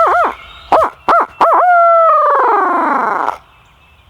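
Barred owl hoot given as a turkey locator call: a few short, loud hoots, then a long note that slides down in pitch and stops near the end. It is the call hunters use to make a roosted gobbler shock-gobble.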